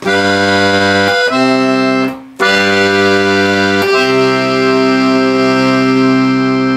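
Chromatic button accordion playing sustained chords: a G dominant seventh resolving to C major, played twice, with the second C chord held longer.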